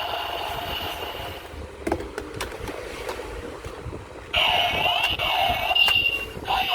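Electronic sound effects from a Kamen Rider OOO DX toy's speaker: steady tones, then a whooshing stretch with a few plastic clicks about two seconds in, and a louder run of gliding tones starting a little past the middle.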